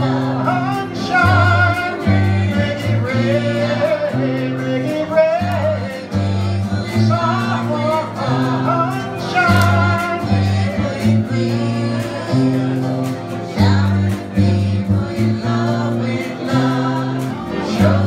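Live acoustic folk band with a group singing along: several voices sing a melody together over strummed acoustic guitar, a bass line stepping between held notes, and a tambourine.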